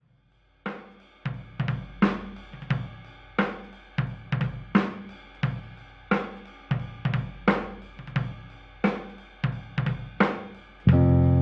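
Background music: a drum-kit passage of regular drum and cymbal hits, with the full band coming back in near the end.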